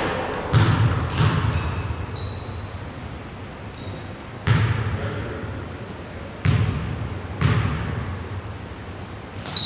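A basketball bouncing on a hardwood gym floor: a handful of heavy, echoing bounces spaced one to two seconds apart, with a few short sneaker squeaks between them.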